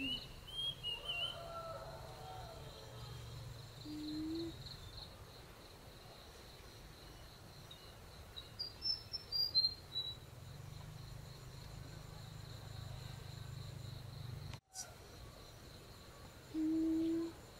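Rural ambience: a steady high-pitched insect trill throughout, with a burst of bird chirps about halfway through. Two short, steady, low hummed vocal notes come in, one early and a louder one near the end.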